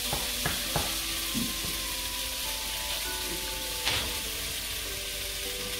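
Pot of pasta and cabbage cooking on the stove with a steady hiss, and a few knocks of a wooden spoon against the pot in the first second and once near four seconds in. Soft background music with held notes underneath.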